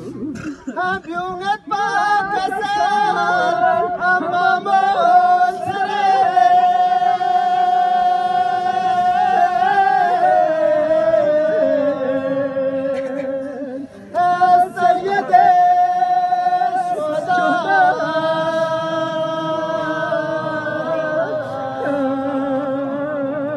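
A man's voice chanting a Balti marsiya, the Shia mourning elegy for Imam Husayn, unaccompanied, in long held, slowly wavering notes. It breaks off briefly a little past the middle, then resumes.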